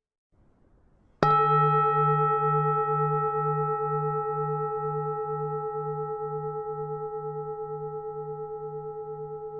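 Buddhist temple bell struck once about a second in, then ringing on in a long, slowly fading decay of several steady tones, the lowest with a slow pulsing hum.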